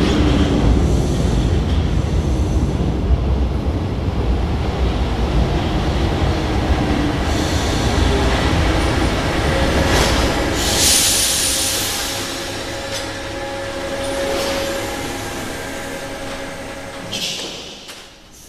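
Paris Métro MF67 steel-wheeled train running through the station: a loud low rumble of wheels on rail with some wheel squeal. About ten seconds in there is a loud burst of hiss, then a steady whine while the train sound fades away.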